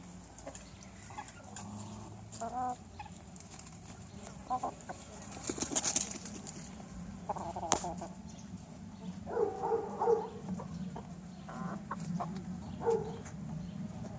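A flock of chickens and roosters clucking in short, scattered calls, with a brief loud rustle about six seconds in.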